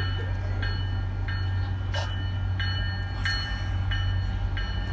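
Warning bell ringing in regular on-off pulses, about every half second, over a steady low rumble as an MBTA F40PH-3C diesel commuter train approaches the station.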